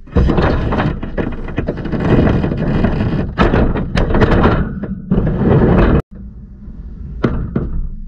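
Dishwasher rack and door being handled right next to the camera: rattling, knocks and thunks. The noise cuts off suddenly about six seconds in, and quieter rattling with a single knock follows.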